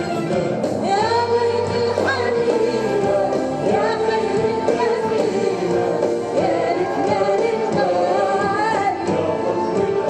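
A woman singing an Arabic song live with orchestral accompaniment, in long held notes that glide and bend between pitches.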